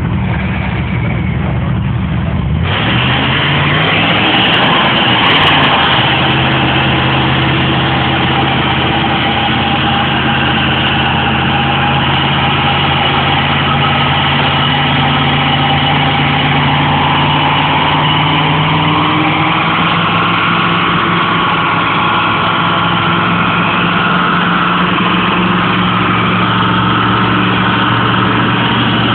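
Chevrolet El Camino engine revving up sharply about three seconds in and then held at high revs through a long burnout, the rear tyres spinning and squealing on the concrete.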